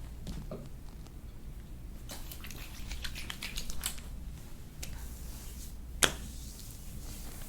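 Hands massaging a foot: soft crackling, squishing skin-and-lotion sounds, with a run of small clicks about two to four seconds in and one sharp, louder click about six seconds in.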